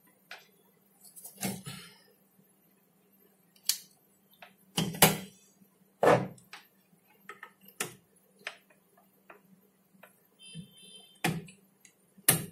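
Irregular clicks and knocks of SATA data cables and a hard disk drive being handled and plugged into a desktop motherboard, over a faint steady hum.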